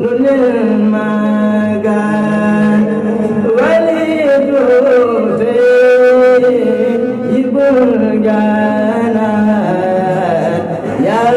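A man singing a religious chant with long held notes that slide and waver in pitch, with no audible beat.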